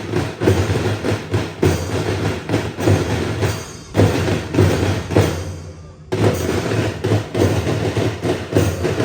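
School marching band's drums beating out a steady march rhythm of sharp, evenly spaced strokes. The playing fades briefly about five and a half seconds in, then starts again abruptly.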